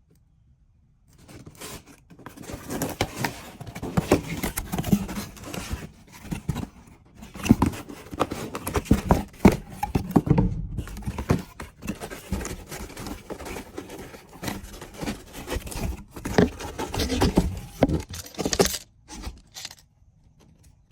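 Irregular scraping, knocking and rustling of hand work, coming in uneven bursts with brief pauses, starting about a second in.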